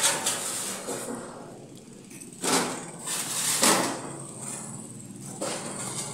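Large iron karahi, a wide jaggery-boiling pan, being rolled on its rim across a workshop floor: steady scraping, with two louder bumps about two and a half and three and a half seconds in.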